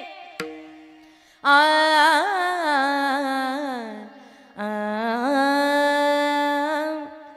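Wordless, ornamented kirtan singing by a woman's voice: two long drawn-out phrases whose pitch slides and wavers, each fading out. Before them comes a brief, steady held instrumental tone.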